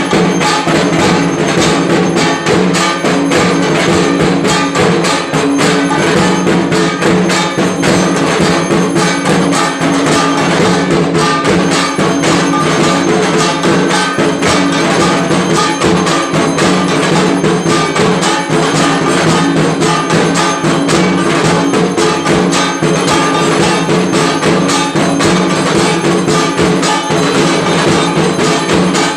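Temple aarti bells and percussion struck rapidly and without a break, a dense, loud, steady metallic clanging over a low ringing hum.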